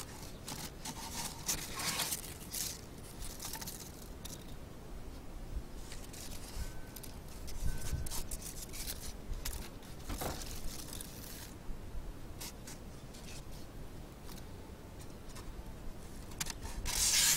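Scraping and rustling in the bottom of a wooden beehive as debris is cleaned off the hive floor and polystyrene divider boards are moved, with scattered small knocks and clicks and a louder scrape near the end.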